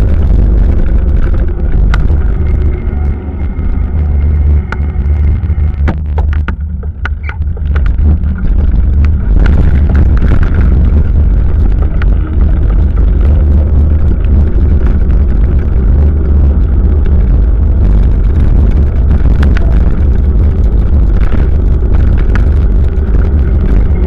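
Steady, loud wind and road rumble on a bicycle-mounted camera while riding, with scattered clicks and rattles. The noise eases briefly about six to eight seconds in, then returns.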